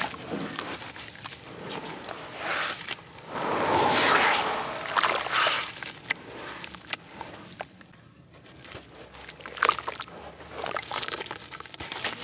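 Hands crumbling grainy dried red dirt into a basin of water and swishing it into mud: gritty crumbling mixed with sloshing and squelching water, loudest about four seconds in, with a quieter lull a little past the middle.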